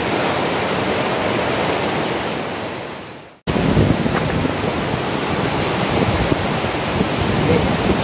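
Steady roar of water falling at a tall waterfall, fading out just after three seconds. After a cut, a fast river rushes over rocks, fuller and lower.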